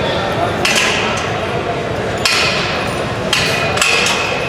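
Metal gym weights clanking, four sharp ringing clanks at uneven intervals, over steady gym background noise.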